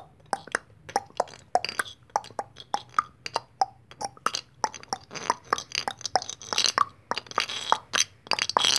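Quick clicking footstep sounds for a walking toy cowboy figure, about three or four clicks a second, each a short hollow pop. A few breathier rushes come in near the middle and the end.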